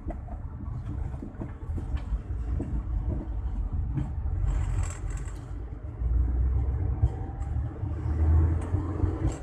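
Road noise inside a moving car's cabin: a steady low rumble of engine and tyres, with a few faint ticks and a brief hiss about five seconds in. The rumble grows louder from about six seconds in.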